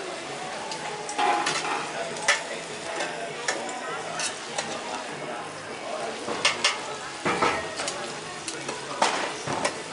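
Food sizzling on a hot griddle or pan, a steady crackling hiss, with metal utensils clicking and scraping against it at irregular moments.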